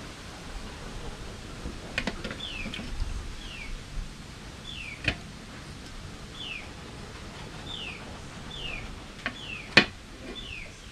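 A bird calls over and over, short high notes each sliding downward, about one a second. A metal spoon clinks against the pot and plate a few times, loudest near the end.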